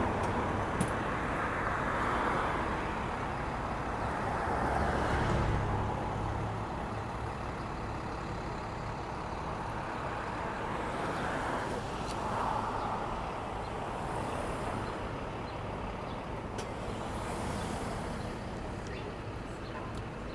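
City street traffic: vehicles passing one after another, with a heavier vehicle's low rumble swelling about five seconds in, over a steady urban background with a few sharp clicks.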